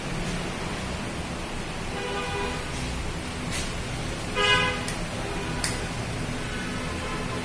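A vehicle horn sounds a few times, loudest in one short toot about four and a half seconds in, over a steady hiss. A few sharp clicks come in between.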